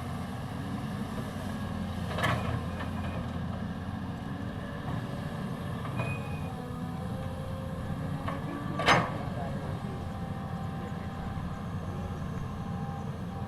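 Cat 320D excavator's diesel engine running steadily under work, with two sharp knocks about two and nine seconds in, the second louder.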